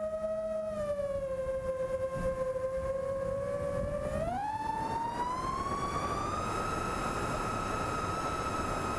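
A 6S FPV quadcopter's Emax Eco 2306 1700 kV brushless motors whining in flight, heard through the onboard camera. The pitch dips slightly about a second in, then climbs steeply around four seconds in as the throttle is punched for a full-speed run, and holds high, with wind rush growing underneath.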